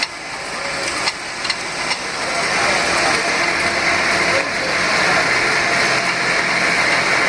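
Sawmill belt-driven by a Peerless Z3 steam traction engine, running. There are a few sharp clicks in the first two seconds, then a dense hissing noise that builds steadily through the rest.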